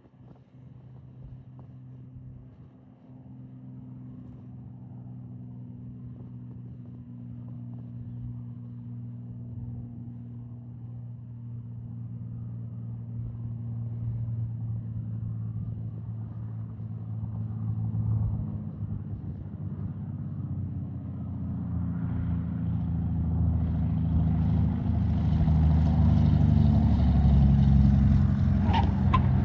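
Propeller airplane engine drone growing steadily louder as the aircraft approaches to land, with the engine's low tones shifting and strengthening near the end.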